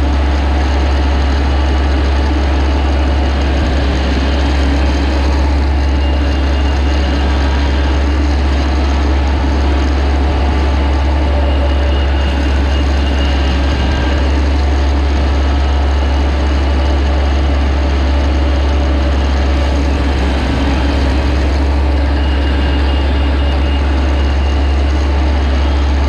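Heavy engine of a rice combine harvester running steadily, a deep constant rumble that holds unchanged throughout.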